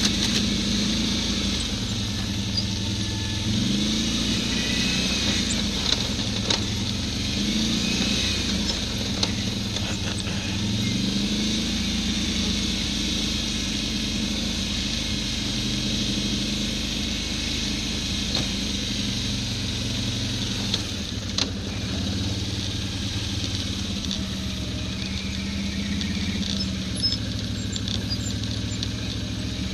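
ATV engine running under way, its pitch rising and falling several times in the first half as the throttle opens and closes, with a few sharp knocks along the way.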